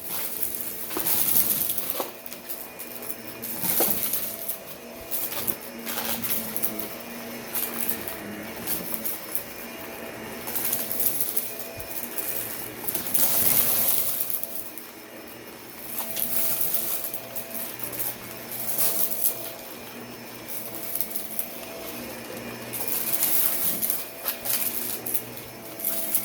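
Vacuum cleaner running, pushed back and forth over carpet: a steady motor hum with a hiss that swells and fades every few seconds, and a few sharp clicks of debris being sucked up.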